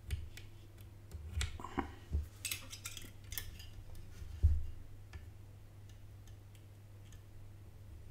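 Small metal clicks and taps of hand tools working on a graphics card circuit board as new capacitors are fitted. The taps are irregular, with a quick cluster in the middle and one louder knock about four and a half seconds in. A steady low hum runs underneath.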